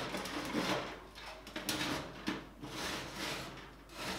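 Metal oven rack and baking tray scraping and clinking as a tray of vegetables is handled and slid into the oven, with a few short knocks.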